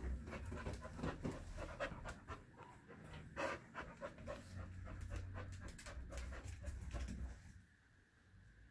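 A dog panting in quick breaths, which stop about seven and a half seconds in.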